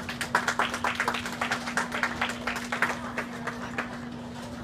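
A few people clapping in quick, distinct claps, applauding a strike in a game of ten-pin bowling. The clapping thins out and stops near the end.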